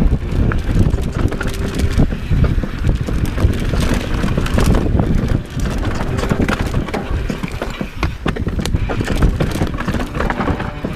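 Mountain bike riding fast down a dirt singletrack: knobby tyres on loose dirt and the bike rattling and clattering over bumps, with wind rushing over the helmet-mounted camera's microphone.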